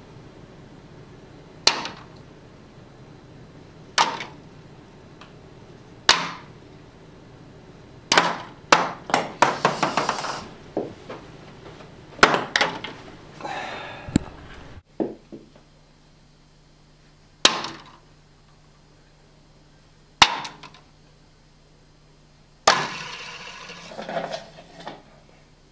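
Ping-pong balls striking plastic cups and the table: single sharp knocks every couple of seconds, and a rapid run of bounces about eight to ten seconds in.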